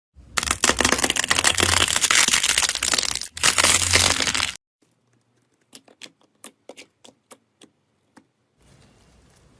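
Slime being squeezed and pressed by hand, with loud, dense crackling and popping for about four seconds. After a short silence come a dozen or so separate sharp clicking pops.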